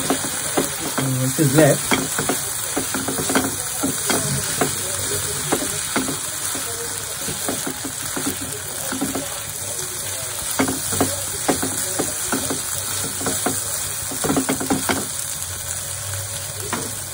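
Drumstick (moringa pod) pieces and grated coconut sizzling in a nonstick frying pan while a silicone spatula stirs them, giving many short scrapes and taps against the pan over a steady hiss.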